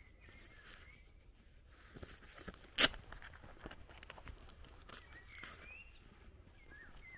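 Footsteps of a person walking outdoors, with birds chirping briefly a few times. A little under three seconds in there is one sharp crack, the loudest sound.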